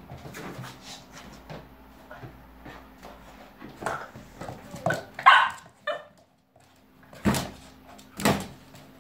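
Cavalier King Charles Spaniel puppy play-barking: short, scattered barks and yips, the loudest a few seconds in and near the end.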